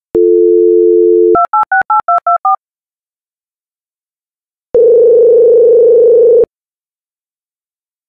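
Telephone line tones: a steady dial tone, then about seven quick touch-tone beeps as a number is dialed, then, a couple of seconds later, a single long ringing tone on the line.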